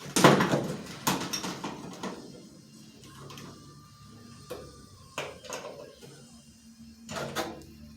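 A series of knocks and clunks from workshop handling of tools and metal parts; the loudest comes right at the start, with smaller knocks and clatters spread through.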